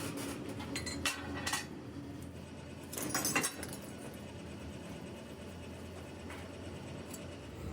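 A few light metallic clinks and knocks: a couple singly about a second in, then a short cluster about three seconds in, over a steady low hum.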